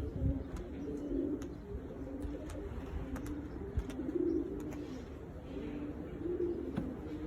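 Domestic pigeons cooing, several low overlapping coos repeating throughout, with faint scattered clicks.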